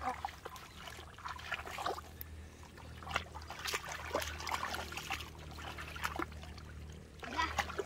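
Shallow muddy water splashing and sloshing in short, irregular bouts as hands dig through mud and legs wade through the water.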